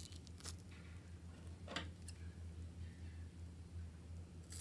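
A few soft crinkles and taps of a plastic piping bag being handled, the loudest a little under two seconds in, then a snip of scissors cutting the bag's tip near the end, over a low steady hum.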